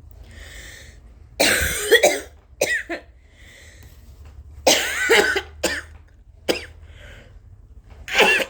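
A woman coughing uncovered in three bouts of several coughs each: a long, hard cough followed by one or two shorter ones, with breaths drawn in between. It is a sick person's cough, which she puts down to a flu or stomach bug.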